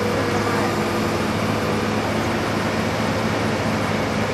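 Backhoe's diesel engine running steadily, a constant low hum with even noise over it.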